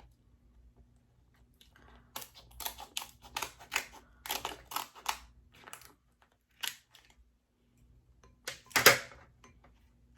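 Hard king crab leg shell clicking and cracking as it is handled and broken: a quick run of sharp clicks and snaps, then a single click, and the loudest crack about nine seconds in.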